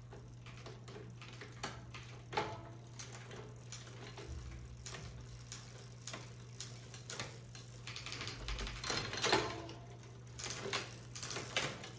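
Trek Dual Sport 8.3's 3x8 drivetrain worked by hand in a repair stand: crank turned, chain running over the sprockets, with a run of irregular clicks from the gears and shifters. It is running without trouble.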